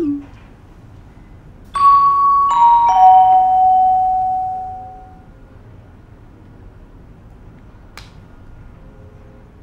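Three bell-like chime notes, each lower than the last, struck in quick succession about two seconds in and ringing out for a few seconds: a start signal for a study countdown timer. A short low sound comes right at the start, and a faint click comes near the end.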